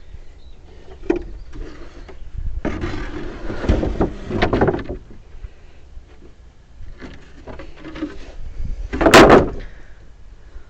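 Wooden boards being handled: scattered knocks and rubbing, a longer stretch of scraping, and one short, louder scrape near the end.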